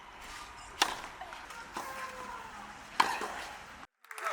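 Tennis ball struck by rackets in a rally: two sharp hits about two seconds apart, with a fainter knock between.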